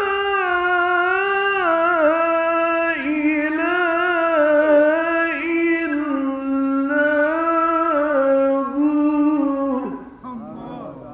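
A male Quran reciter chanting in melodic tajweed style. He holds one long, ornamented phrase whose pitch steps and wavers, and it ends about ten seconds in. Fainter voices follow.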